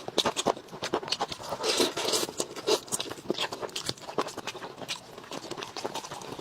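Close-up eating sounds: food being chewed and crunched, with many irregular crisp crackles and clicks.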